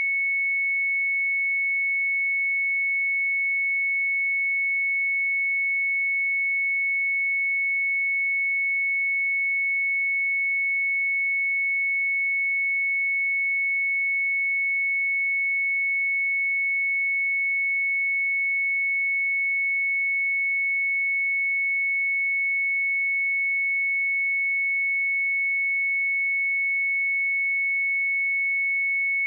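A pure 2208 Hz sine-wave test tone, one steady high-pitched note held at constant level, with no other sound.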